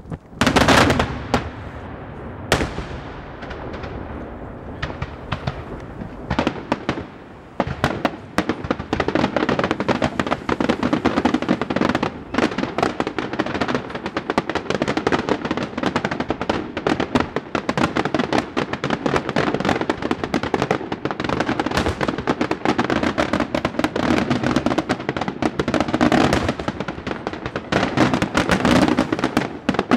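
Daytime fireworks shells bursting overhead: two loud bangs in the first few seconds, then from about eight seconds a dense, continuous barrage of rapid crackling reports.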